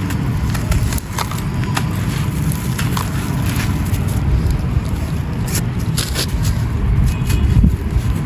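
Dry, hardened crumbling texture being crushed by hand, giving scattered crisp crunches and crackles over heavy wind rumble on the microphone.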